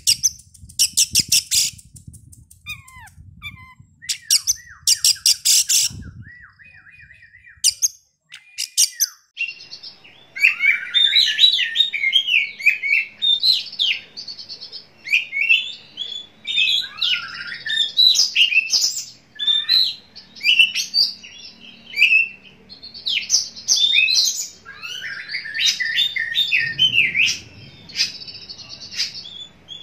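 Oriental magpie-robin (kacer) song: at first a few harsh, rattling chatters and falling whistles, then from about ten seconds in a fast, unbroken run of varied whistled and chattering phrases.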